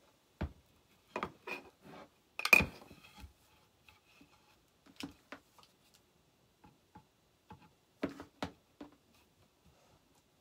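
Scattered clicks, taps and knocks of hands working with crafting tools and ribbon on a worktable. The loudest is a sharp knock about two and a half seconds in, with smaller clusters of taps around a second in, at five seconds and at eight seconds.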